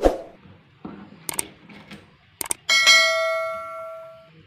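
Subscribe-button sound effect: a few sharp clicks, then a bell ding that rings for about a second and a half and fades away. It is preceded by a thud of the knife against the cutting board right at the start.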